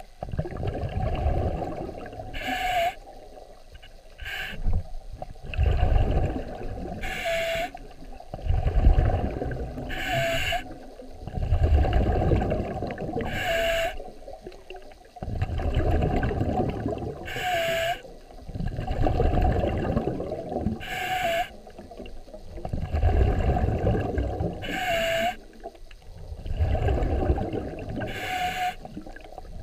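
A scuba diver breathing underwater through a regulator, slow and regular, about one breath every three seconds. Each breath is a short hissing inhale with a small squeak from the regulator valve, followed by a longer low rumble of exhaled bubbles.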